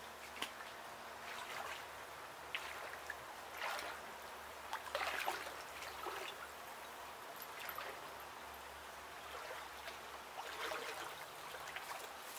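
A person wading slowly into lake water, with soft, irregular splashes and sloshing as the legs push through it.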